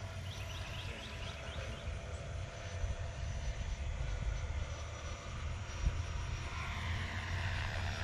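Electric ducted fan of an E-flite F-16 70 mm RC jet whining in flight, over a low rumble, and growing louder near the end as the jet comes round.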